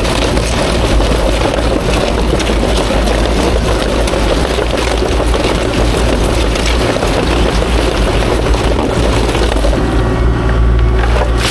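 Kubota KX040-4 mini excavator's diesel engine running steadily under load, with faint clatter on top; the sound eases in its higher part about ten seconds in.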